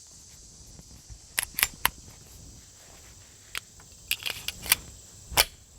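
Sharp metallic clicks from handling a Springfield Armory 1911 pistol and its .45 ACP magazine, ending about five seconds in with the loudest click as the magazine seats home in the grip.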